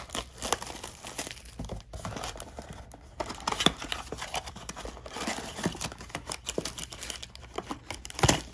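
Hands opening a cardboard trading-card blaster box, the cardboard and packaging rustling with many small irregular clicks and scrapes, and one sharper knock near the end.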